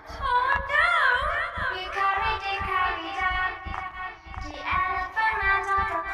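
A children's nursery-rhyme song, sung voices over music, with several copies of the track layered on top of each other and some pitch-warped so the voices waver up and down.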